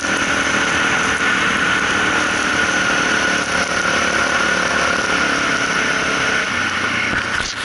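Suzuki DR650's single-cylinder four-stroke engine running steadily while riding, heard over a constant rush of noise; the engine note eases off near the end.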